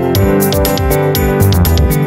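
Background music with a steady beat and sustained instrumental chords.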